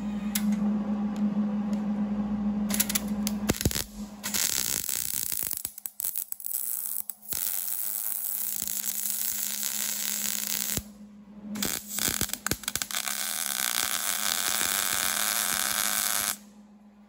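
A power tool running in several long spells with short pauses between them, over a steady low hum; it stops abruptly near the end.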